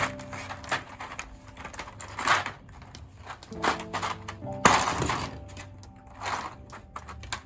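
Hard plastic keycaps clattering as they are handled and pulled from a mechanical keyboard, in a few short rattling bursts, the loudest a little under five seconds in. Background music with held notes plays throughout.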